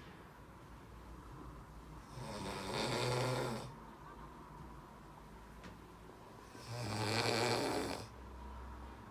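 A man snoring in his sleep: two long, loud snores about four and a half seconds apart, each lasting about a second and a half, with quieter breathing between.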